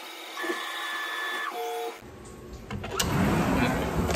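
Tormach 1100MX CNC mill running its program, its motors giving several steady whining tones that start, stop and change pitch in steps as the machine moves. About two seconds in, this gives way to handling noise with a few clicks and knocks.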